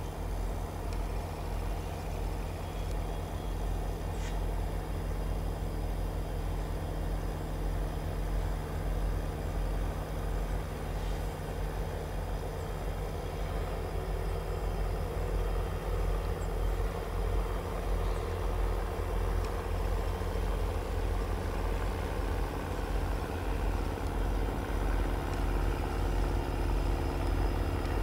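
Pair of EMD SD70M diesel-electric locomotives drawing closer with a manifest freight, their engines a steady drone whose pitch shifts about halfway through, growing a little louder near the end.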